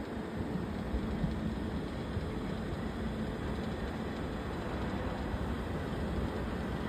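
Steady wind buffeting the microphone, a low, even rumble with no separate events.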